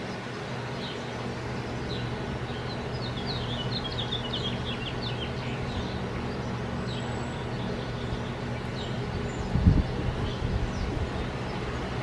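Small songbirds chirping, with a quick run of chirps a few seconds in, over a steady low background hum. About ten seconds in there is a brief low thump, the loudest sound.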